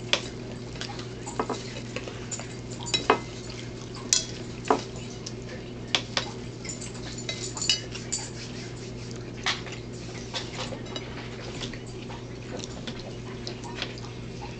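Eating at a table: irregular clicks, clinks and taps of food and utensils handled against plates, over a steady low hum.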